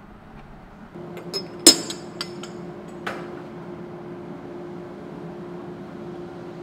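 Ceramic cups and plates clinking as they are set into a dish rack: several sharp clinks, one loud ringing clink about a second and a half in, and a last one about three seconds in. A steady low hum runs under it from about a second in.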